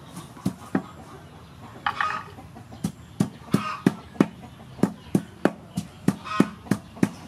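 Wooden pestle pounding lemongrass stalk in a large wooden mortar: dull thuds, a few at first, then about three a second from a few seconds in. Chickens cluck three times in the background.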